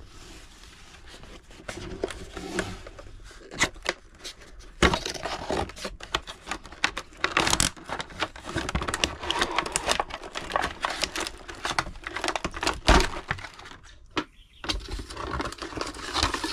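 Cardboard box and plastic packaging being handled during unboxing: rustling and crinkling throughout, broken by sharp clicks and knocks as parts are pulled out and set on the table.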